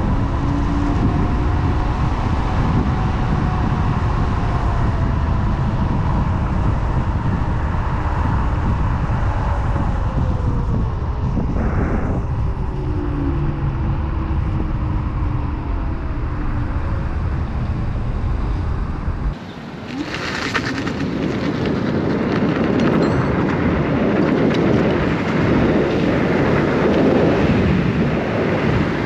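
Wind rushing over the microphone and road noise while riding a Kaabo Wolf King GT electric scooter at speed, with faint whines gliding up and down in pitch in the first half. About two-thirds through, the sound changes abruptly as the deep rumble drops out, leaving a lighter rushing hiss.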